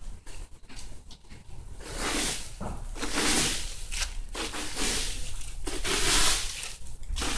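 Dry fallen leaves crunching and rustling underfoot, in a run of bursts about a second long starting about two seconds in.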